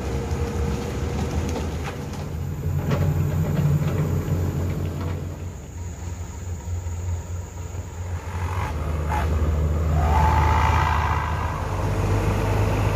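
Concrete mixer truck's diesel engine running steadily, with a few short knocks and scrapes. The engine gets louder about ten seconds in.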